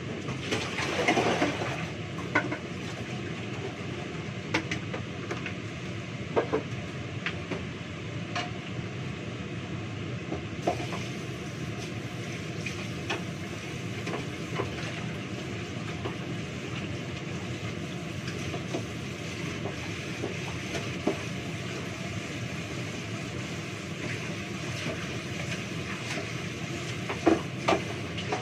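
Dishes and utensils clinking and knocking in a kitchen sink every few seconds while washing up, over a steady low rumble. There is a brief rush of noise about a second in and a louder pair of knocks near the end.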